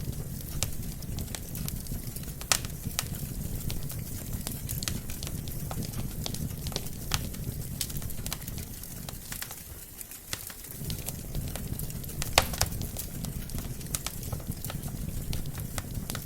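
Wood fire in a fireplace crackling: a steady low rumble of burning logs under many scattered small snaps, with two louder pops about two and a half seconds in and about twelve seconds in.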